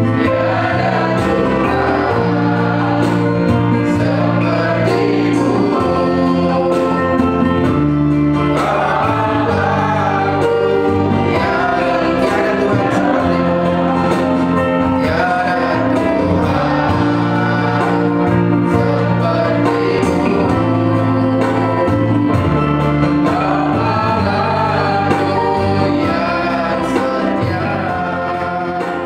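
Christian worship song: voices singing over held instrumental chords, fading out near the end.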